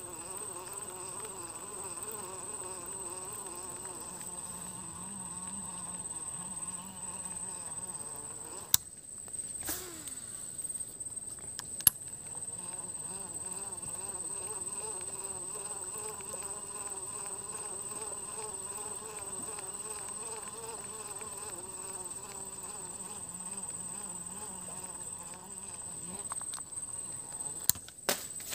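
Flying insects buzzing close around the microphone: a wavering drone that rises and falls in pitch, over a steady high whine. A few sharp clicks cut through it, the loudest about nine and twelve seconds in and again near the end.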